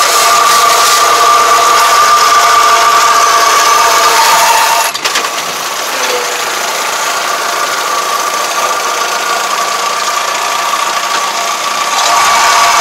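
Yanmar tractor and its towed bale wrapper running, with a steady high whine and rattling. About five seconds in the sound drops suddenly with a short knock and goes on quieter until it picks up again near the end.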